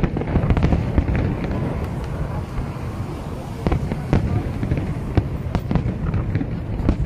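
Fireworks display: aerial shells bursting in a rapid, continuous run, many sharp bangs in quick irregular succession over a dense low rumble.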